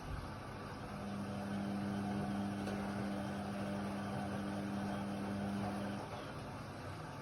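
Indesit WIDL 106 washer-dryer running, a steady machine noise with a motor hum that comes on about a second in, holds a steady pitch, and cuts off about a second before the end.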